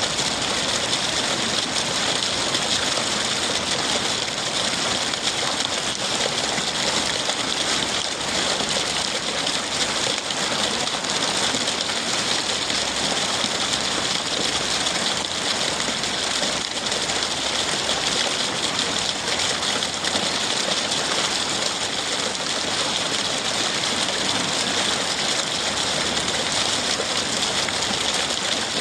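Rainwater pouring from a roof gutter and splashing steadily, a continuous even rush of falling water with rain hiss.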